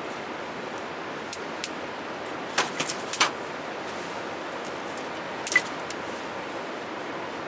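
Steady hiss of rain falling, with a quick run of sharp clicks and clinks about two and a half to three seconds in and one more a couple of seconds later.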